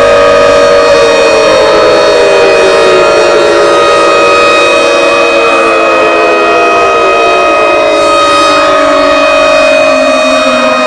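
Civil defense sirens sounding continuously and loudly: one holds a steady pitch while others wail, sliding slowly down and up in pitch.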